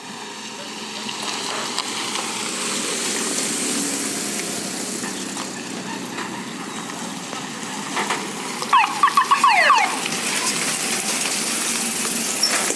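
Fire truck siren sounding a brief rapid yelp, about six quick up-and-down warbles in a second, then dropping in pitch, about nine seconds in, over a steady rushing noise.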